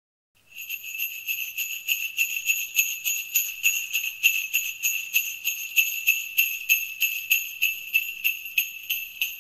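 Sleigh bells jingling, shaken in a steady, even rhythm, starting just under half a second in.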